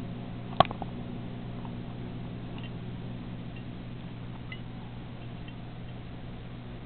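Steady low hum of an aquarium filter pump, with one sharp clink with a short ring about half a second in and a few faint ticks after it.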